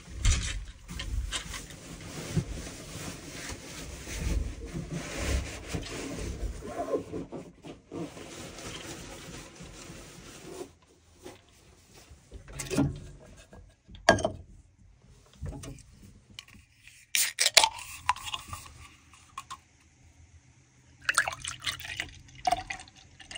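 Rustling of a sleeping bag and pad for about ten seconds, then a few sharp clicks and knocks of things being handled, and near the end a drink poured from an opened can into a metal mug.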